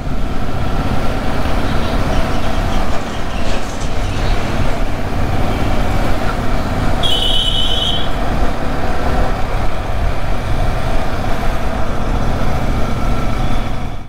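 Motorcycle on the move through traffic: a steady, loud rush of wind and engine and road noise on the rider's camera. A brief high tone sounds for about a second midway.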